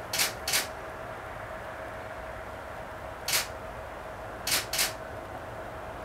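Camera shutter firing five times: a quick pair at the start, a single shot a little past the middle, and another quick pair near the end, over a faint steady hum.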